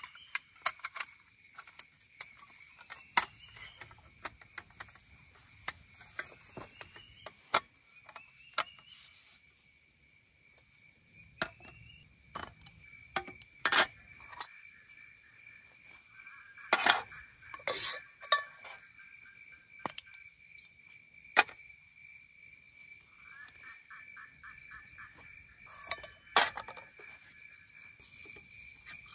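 Aluminium camp gear being handled: scattered clicks, knocks and metallic clinks as a folding aluminium table is assembled and a metal cooking pot, lid and canister stove are set down and fitted together. A steady high insect drone runs behind.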